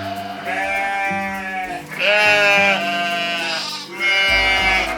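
Sheep bleating: several long, quavering bleats, one after another, over background music.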